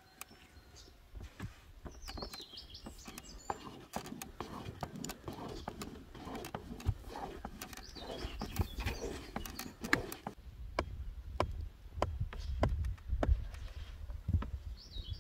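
Irregular sharp wooden knocks and taps, with birds chirping a few times and a low rumble in the second half.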